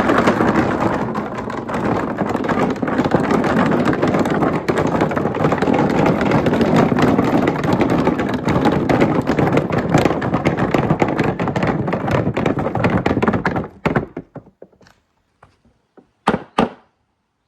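Marbles rolling and clattering down a marble run: a dense, continuous stream of quick clicks and knocks that stops suddenly about 14 seconds in, followed by a few last isolated clicks near the end.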